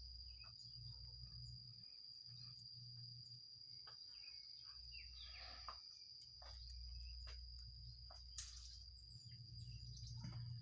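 Faint steady high-pitched insect drone in the forest, holding one tone throughout, with scattered faint ticks and rustles and a low rumble that comes and goes.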